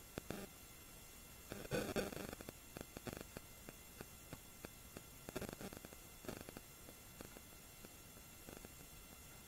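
Faint handling sounds of fabric and lace being worked: scattered light clicks and rustles, loudest about two seconds in and again a little past five seconds, over a steady electrical hum.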